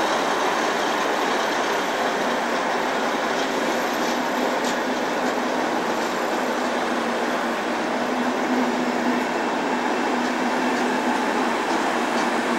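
A passenger train hauled by a DB Class 103 electric locomotive pulling away along the platform. Its coaches roll past with a steady noise of wheels on rail, and there are a few faint clicks.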